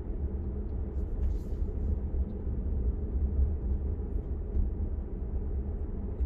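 Steady low road and tyre rumble heard inside the cabin of a Tesla Model 3 electric car cruising at about 30 mph.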